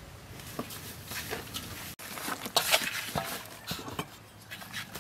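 Hands handling raw pork offal in a stainless steel bowl, rubbing it with salt to clean it: scattered soft wet squelches and light taps against the metal.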